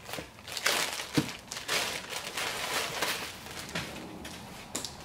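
Clear plastic bag crinkling and rustling in uneven bursts as it is pulled off a foam model jet's fuselage, with a sharp tap about a second in.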